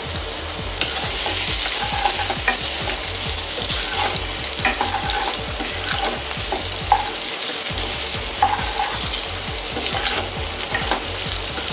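Boiled baby potatoes sizzling in hot oil in a frying pan while a spatula stirs them, with short scrapes of the spatula against the pan every second or two.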